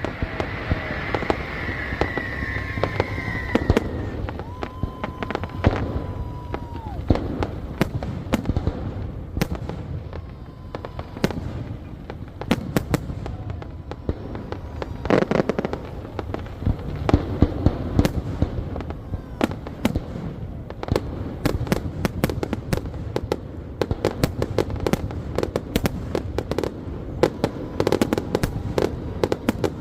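Fireworks display going off in rapid succession: a dense, continuous run of sharp bangs and crackles, several a second, with a held steady tone for a couple of seconds about five seconds in.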